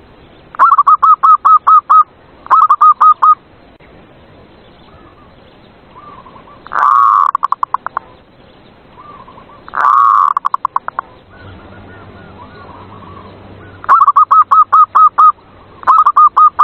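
Zebra dove (perkutut) singing: six phrases of quick staccato cooing notes. Two of the phrases open with a longer, louder coo that runs into a trailing patter, and softer single coos fall in between.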